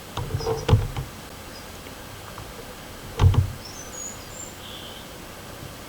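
Two dull knocks, a small one just under a second in and a louder one about three seconds in. Then a few short, high bird chirps.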